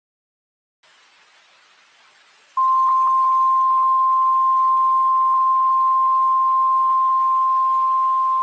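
NOAA Weather Radio's 1050 Hz warning alarm tone: after a moment of faint radio hiss, one steady high tone comes on about two and a half seconds in and holds. It signals that an urgent warning message is about to be read.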